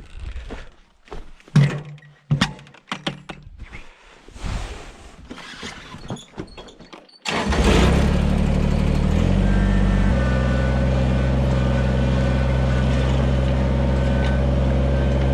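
Knocks and clattering for about seven seconds, then an abrupt change to a vehicle engine running steadily, its note shifting twice soon after it comes in.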